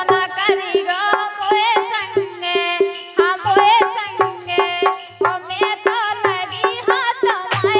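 Woman singing a Bundeli Rai folk song with ornamented, wavering pitch, over harmonium accompaniment and a fast steady percussion beat.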